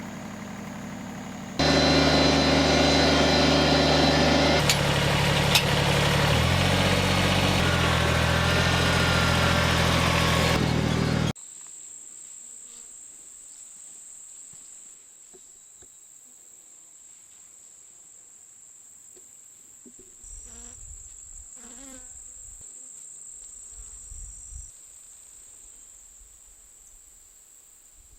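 A loud, steady sound with sustained tones that shift in a few steps, cutting off suddenly about eleven seconds in. Then a steady high-pitched insect trill, with some low rumbling near the end.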